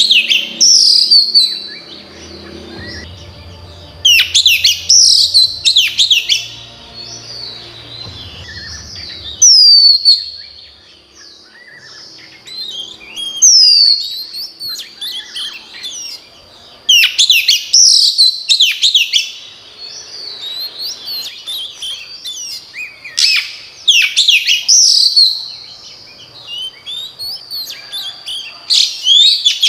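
Female oriental magpie-robin singing: bursts of sharp whistled notes, many sweeping downward, repeated every few seconds. This is the hen's song that keepers play to stir up and excite male magpie-robins.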